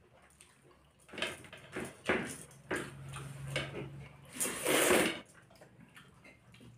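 People eating rice and fish curry with their hands: squelching of rice worked with the fingers and wet chewing and mouth sounds, in a run of short noisy sounds from about a second in. The loudest is a longer wet burst near the five-second mark.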